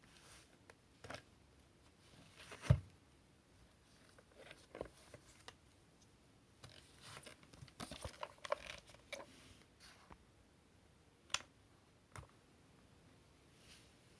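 Faint handling noises of plastic cordless-vacuum parts: scattered clicks and light rustling, with one dull knock about three seconds in and a run of small clicks in the middle.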